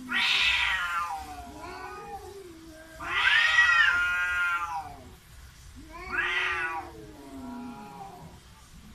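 Cats caterwauling in a face-off between two cats: three long, wavering yowls about three seconds apart, each trailing off into a lower, quieter moan.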